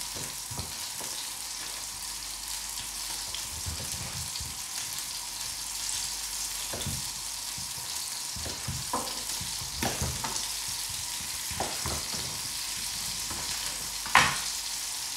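Kitchen knife cutting squash into cubes on a wooden chopping board: scattered knocks of the blade on the board, the loudest near the end, over a steady hiss.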